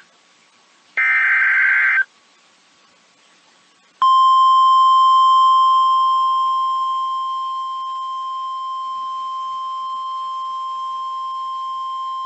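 NOAA Weather Radio alert sequence. First comes a one-second burst of warbling SAME data tones. About four seconds in, the steady 1050 Hz warning alarm tone starts; it is the tone that sets off weather radio receivers ahead of a warning. The tone gets somewhat quieter between about six and eight seconds in, then holds.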